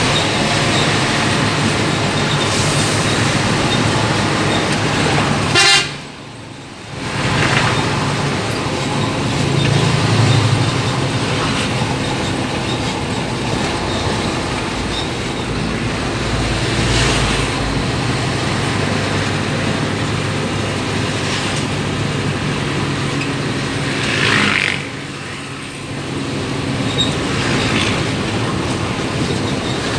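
Bus engine running with road and tyre noise heard from inside the cabin at highway speed. A horn toots briefly about six seconds in.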